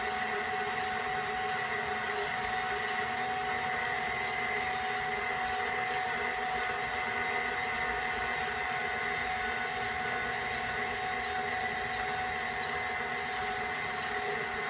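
Electric pasta machine's motor running steadily with a constant whine while it drives the fettuccine cutter, cutting rolled pasta sheets into noodles; it stops near the end.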